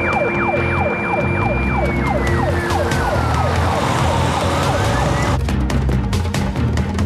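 Police car siren sounding, a fast repeating falling yelp under a long high tone that slides down and back up, over dramatic background music. The siren cuts off suddenly about five seconds in, leaving the music with sharp percussive hits.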